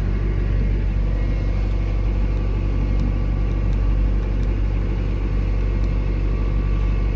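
Sailboat's inboard engine running steadily under way: a constant low drone with a faint steady hum.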